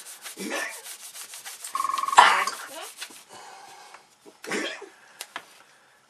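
Hands rolling white tack into thin sausages on a table: quick, rhythmic rubbing strokes that die away after about three seconds. About two seconds in, a short beep and a loud sudden burst rise above the rubbing.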